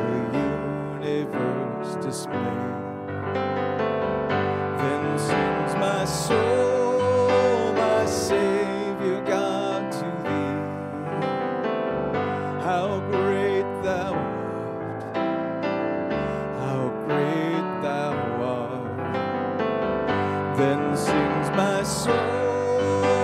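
A man singing a worship song into a microphone while playing an electric piano keyboard, his held notes wavering with vibrato.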